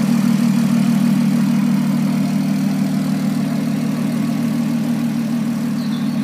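An engine idling steadily: a constant low hum that holds one pitch throughout, with no revs.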